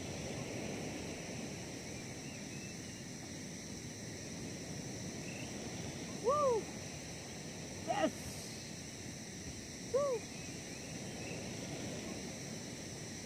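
Night insects chirring steadily, with three short calls from a night animal about two seconds apart near the middle, each rising and falling in pitch.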